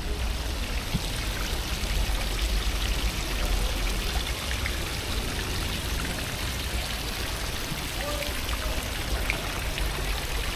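Water pouring steadily from stone dragon-head spouts into a pond, a continuous splashing, with a low rumble underneath.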